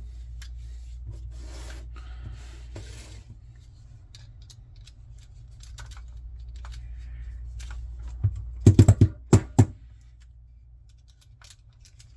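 6 mm Allen wrench turning out the long screw in a Paclock 90A-Pro padlock: soft scraping and scattered light clicks, then a cluster of about six sharp clicks a little past two-thirds of the way through. A steady low hum runs underneath.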